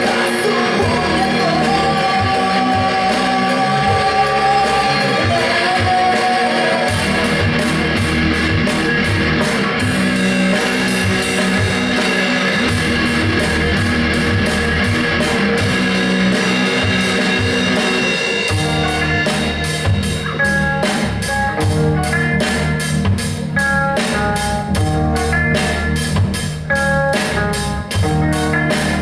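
Heavy rock music with electric guitars and a drum kit. A wavering sung note is held for the first few seconds. Then comes a guitar-and-drum passage whose drum hits become fast and dense about two-thirds of the way through.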